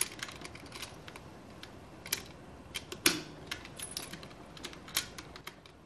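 Irregular light clicks and clacks of metal draw hook latches and hard equipment cases as a transceiver power unit is fastened to the back of an AN/PSC-5D manpack radio, with one slightly fuller knock about three seconds in.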